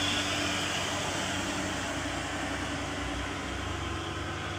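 Heavy vehicle's diesel engine running steadily, slowly growing quieter.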